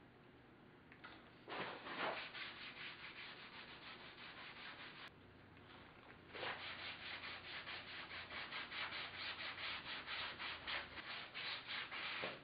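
Alcohol-dampened cloth rag rubbed back and forth over stained wood, a soft rasping wipe. A few strokes come early, then a short pause about five seconds in, then a quick steady run of about three strokes a second.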